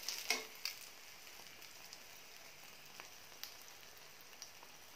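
Egg paratha frying in ghee in a pan, with a faint, steady sizzle. A few sharp clicks of steel tongs against the pan come through it, the loudest about a third of a second in.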